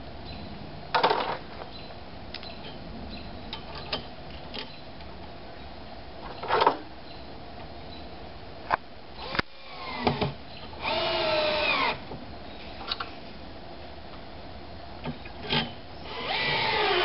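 Cordless drill driving screws to fasten a conduit clamp to a wooden 4x4 post. There are a couple of short trigger pulls, then two longer runs near the middle and near the end, in which the motor's pitch rises and falls as each screw goes in.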